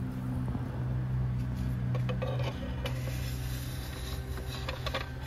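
A steady low machine hum, with a few light clicks and taps over it.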